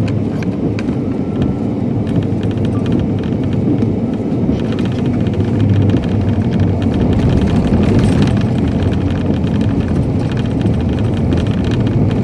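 Tornado wind blowing loud and steady, deep and rumbling, with scattered sharp ticks of things striking through it.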